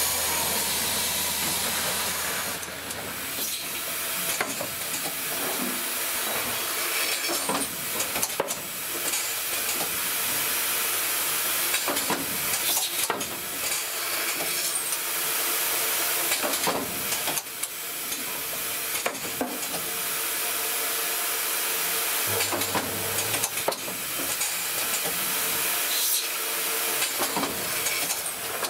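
Automated pneumatic assembly machine with a vibratory bowl feeder running: a steady hiss and machine hum, with sharp clicks and knocks at irregular intervals from the cylinders and parts-handling.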